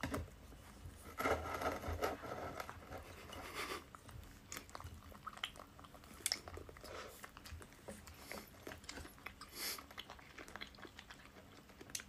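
Close-up eating sounds: biting and wet chewing of soft white pieces of food by a person and a baby monkey, with irregular small clicks and smacks. The chewing is densest from about a second in for a couple of seconds.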